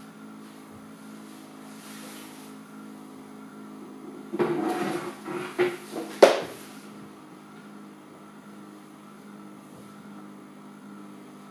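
Small precision spinning top running on a magnetic base, making a steady low hum. About four seconds in comes a louder, noisy couple of seconds that ends in a sharp click, after which the hum carries on.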